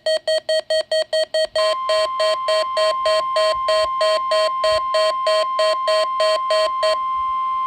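NOAA Weather Radio warning alarm during its weekly test. A weather radio receiver beeps rapidly, about four to five beeps a second. About one and a half seconds in, the steady 1050 Hz warning alarm tone joins the beeps. The beeping stops near the end, leaving the steady tone alone.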